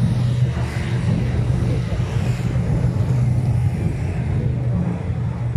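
A motor vehicle's engine running steadily with a low hum, over general street noise.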